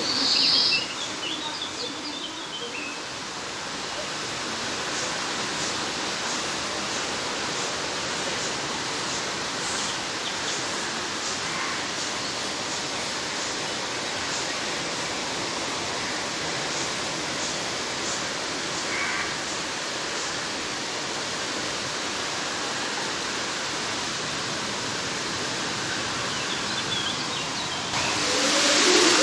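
Steady rushing of an artificial waterfall spilling into a pool, an even wash of water noise. A brief high sound comes about half a second in, and people's voices rise near the end.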